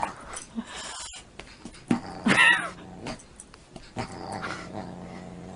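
A Siamese cat and a dog play-fighting, with growling and scuffling and a short, higher-pitched cry about two seconds in.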